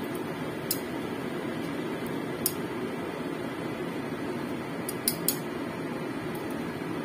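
Metal tongs clicking against a stainless wire-mesh strainer four times, two in quick succession past the middle, over a steady low rushing background.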